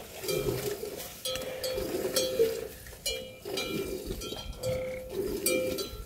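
Livestock bells clanking unevenly, about two ringing strikes a second, their tones overlapping.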